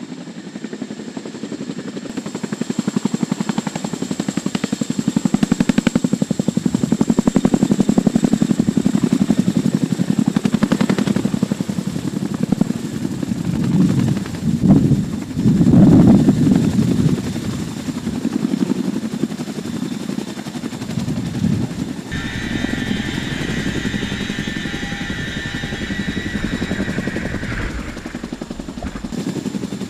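Boeing CH-47 Chinook's tandem rotors beating in a low hover, loudest about halfway through.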